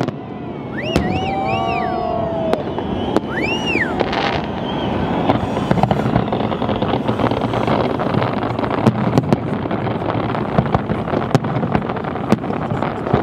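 Fireworks bursting in a continuous dense barrage, crackling with many sharp pops throughout. A few rising-and-falling whistles sound in the first four seconds.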